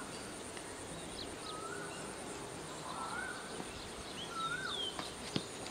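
Open-air background over a steady hiss, with a bird whistling short rising-and-falling calls every second or so. Right at the end a single sharp crack: cricket bat striking the ball.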